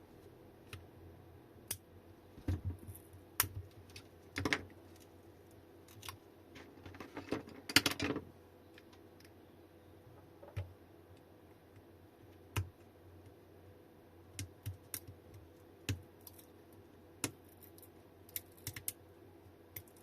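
Irregular small clicks, taps and scrapes from hands working on an opened lithium-ion battery pack, easing a part back to expose the cells' nickel strips. A denser burst of clattering and scraping comes about seven to eight seconds in.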